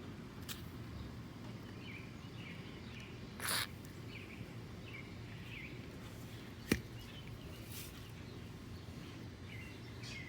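Faint background noise with small birds chirping now and then, a brief hiss about a third of the way in, and a single sharp click about two-thirds through.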